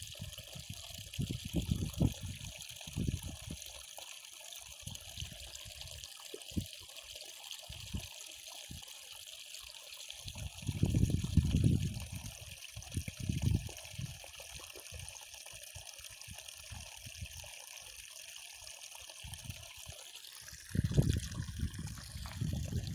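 Water trickling steadily in a canal. There are low rumbles about ten seconds in and again near the end, with scattered soft knocks.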